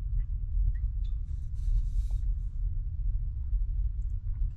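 Wind buffeting the microphone: a low rumble that rises and falls with the gusts, with a faint brief hiss about two seconds in.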